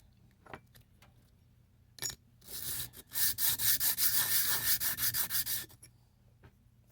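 Steel pocket-knife blade rubbed back and forth by hand on sticky-back DA sandpaper laid flat on a magnetic chuck: a light test sanding to see how flat the warped blade is. A click about two seconds in, a short scrape, then about two and a half seconds of steady sanding strokes that stop near the end.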